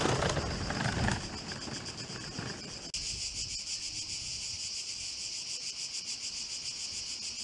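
Cicadas buzzing in a steady, high-pitched, fast-pulsing chorus that starts abruptly about three seconds in. Before that, the noise of a motor scooter that has just passed fades out in the first second.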